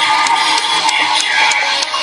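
Electronic music and sound effects played through the small speaker of a DX Kamen Rider Desire Driver toy belt with the Ninja Raise Buckle fitted: its built-in audio, with a few short sharp ticks in it.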